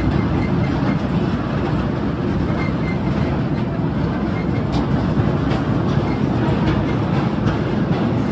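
Narrow-gauge sugar-railway tourist train running, a steady low rumble of wheels and carriages on the track with a few faint clicks.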